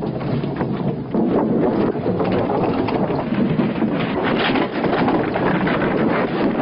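Loose wooden bridge planks clattering and knocking continuously as a vehicle drives across them.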